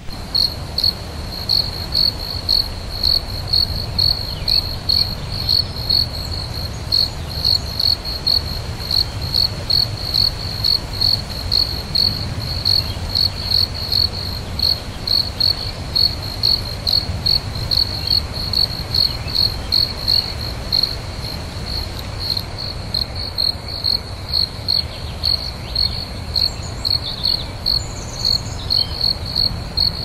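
Crickets chirping in a steady, even rhythm, about two high-pitched chirps a second, over a low steady rumble of night ambience.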